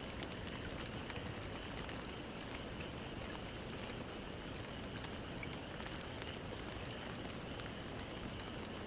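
Steady, even background hiss with faint scattered ticks, like light rain, over a thin steady high-pitched drone; no breathing or snoring rhythm stands out.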